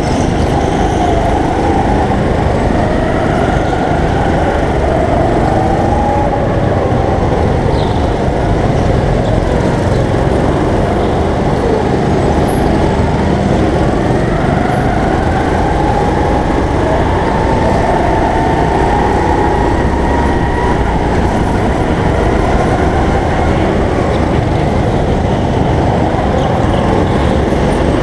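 Go-kart motor heard from on board at racing speed, its pitch rising and falling over and over as the kart speeds up and slows.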